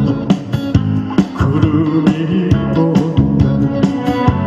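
Music: a song's accompaniment led by guitar with a steady beat, with the male singer's voice weak or absent here.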